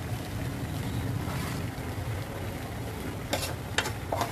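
A steady low hum with three short clatters near the end: a metal spoon knocking against an aluminium pot as cooked whole masoor lentil masala is spooned onto rice.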